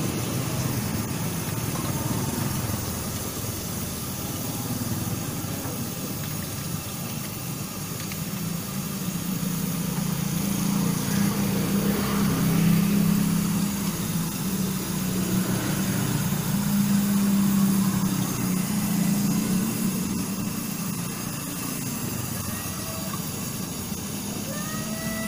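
A steady low engine hum, swelling a little in the middle, under a background of street noise.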